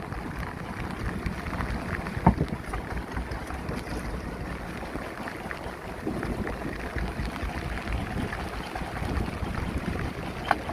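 Wind buffeting the microphone and sea water washing around a small fishing boat, with a few short knocks, the sharpest about two seconds in.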